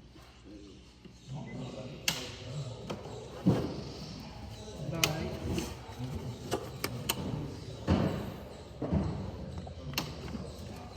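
Scattered knocks and thumps, about five sharp ones, over a low murmur of background voices.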